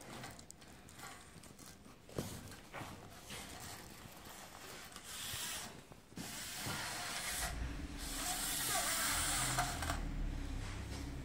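Hands working an aluminium screen-frame profile and its brush-pile seal strip: scattered small clicks and knocks at first, then longer rubbing, scraping strokes as the strip is slid along the profile, with a low rumble under the later part.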